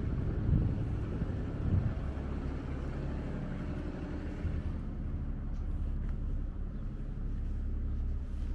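Outdoor street ambience: a steady low rumble with no distinct events, its higher part fading about five seconds in.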